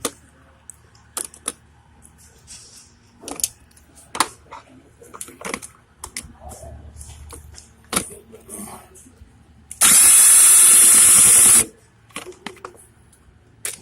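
Light clicks and knocks of a socket and tools on the motorcycle's engine case, then a handheld power driver runs for about two seconds, spinning out one of the 8 mm clutch-cover bolts.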